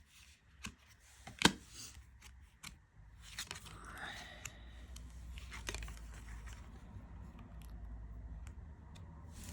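Tarot cards and a cardboard deck box being handled: a string of sharp clicks and taps, the loudest about a second and a half in, then a low rumble of handling noise from about three seconds in.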